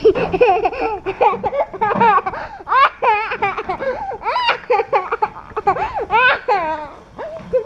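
Toddler laughing and giggling, a quick string of short high-pitched squeals and laughs.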